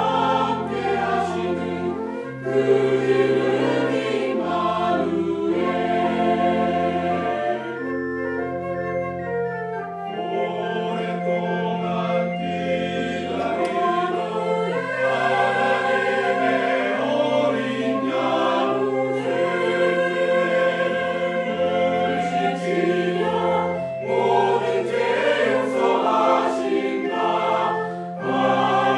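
Church choir singing a hymn anthem, many voices holding notes together phrase by phrase, with short breaks between phrases.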